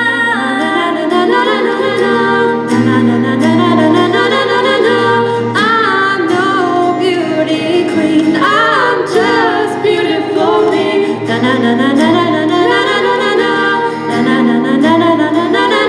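A group of female voices singing a pop song together in choir-like harmony.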